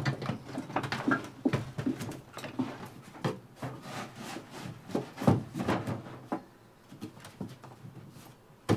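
Knocks, scrapes and rubbing as a small window air-conditioner unit is handled and set into place against wooden framing and a plywood floor, with a few sharper thumps, one near the start, one about five seconds in and one near the end.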